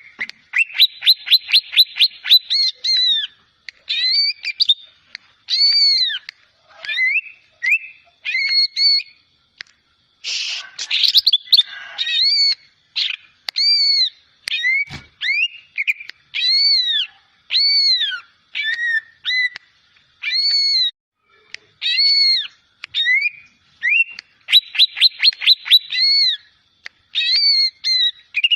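Young cucak ijo (greater green leafbird) in speckled juvenile plumage practising its song: a long run of clear arched whistle notes, with quick rapid-fire trills near the start and near the end and a harsher chattering burst about ten seconds in.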